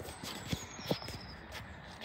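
A few soft footsteps on a tarmac driveway, spaced unevenly, with faint birdsong behind.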